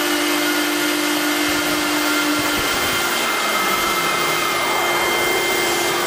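The high-speed spindle of a stone-working CNC router running as it cuts into a stone slab: a steady motor whine over a loud, even hiss. A lower hum in the mix drops out about two and a half seconds in.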